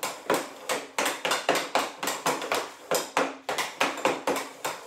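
Hockey stick blade knocking a green puck side to side on synthetic ice panels: a quick run of sharp clacks, about three a second.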